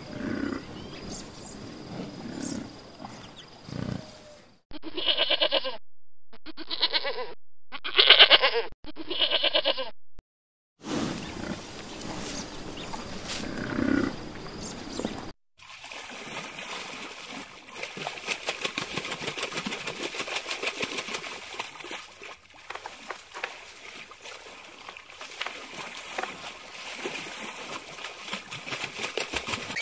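Four short bleating animal calls, each under a second with brief gaps between, are the loudest part. Afterwards comes a long stretch of rapid, irregular clicking over a high hiss.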